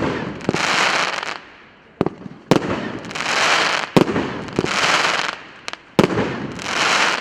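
P8595 'Borodino' firework battery firing shot after shot, a sharp bang roughly every two seconds, each followed by about a second of hissing noise from the burst.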